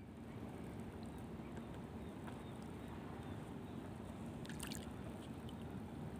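Water lapping and sloshing against the hull of a small boat at sea under a steady background noise. A few light clicks and taps come about four and a half seconds in.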